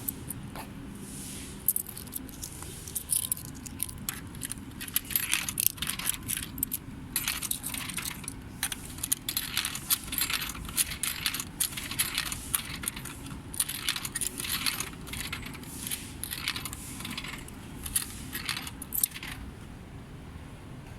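Irregular light metallic clinking and jingling, many quick small clicks and rattles over a low steady background, dying away near the end.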